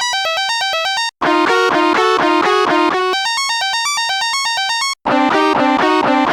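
Electronic music built on fast synthesizer arpeggios, alternating between thin high passages and fuller ones with lower notes, with a brief dead stop about a second in and another about five seconds in.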